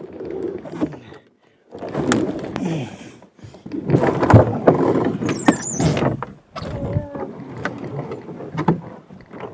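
Canoe hull scraping and knocking against rocks and driftwood as it is shoved off the bank into a shallow stream, in four rough bursts with brief pauses between them and a short squeal about halfway through.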